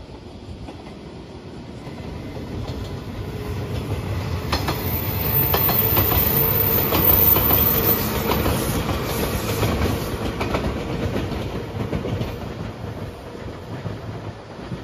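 JR 115 series electric train passing close by: its rumble swells to a peak about six to eight seconds in and fades as it moves away, with the clickety-clack of wheels over rail joints while it goes past.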